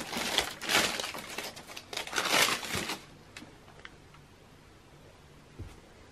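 Tissue paper crinkling and rustling in a shoebox as a sneaker is handled and lifted out, in several swells over the first three seconds, then a few faint light ticks.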